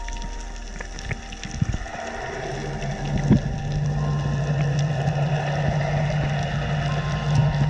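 A boat's engine running, a steady hum that sets in about two seconds in and grows louder, with a few knocks before it.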